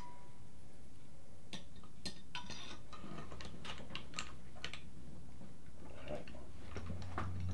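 Scattered light metallic clicks and taps from a piston-puller tool being twisted and handled on a brake caliper, working a stuck caliper piston loose. A steady low hum comes in near the end.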